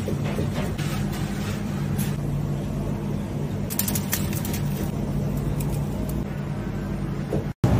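A steady low hum, with a few faint light ticks about four seconds in and a brief cut-out near the end.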